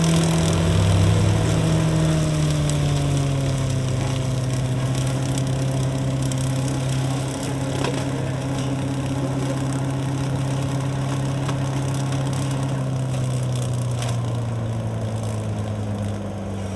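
Tractor engine running steadily under load, driving a Berti TA/M side-mounted flail mulcher whose rotor shreds roadside grass and weeds. The engine note sags slightly a couple of seconds in and drifts a little lower toward the end.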